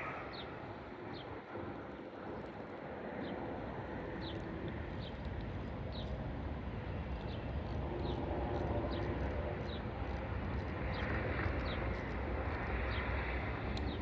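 Outdoor background: a steady low rumble like distant engines, with short high chirps recurring every second or so.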